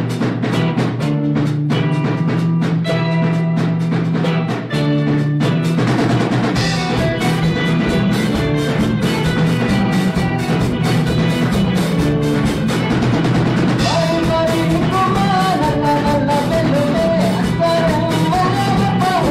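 A band playing a song intro: a drum kit keeps a steady beat over a bass line and chords. About two-thirds of the way through, a wavering lead melody comes in on top.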